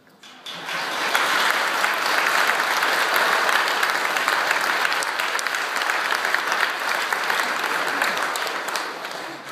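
Congregation applauding in a church, with one pair of hands clapping close by. The applause starts suddenly about half a second in and tapers off near the end.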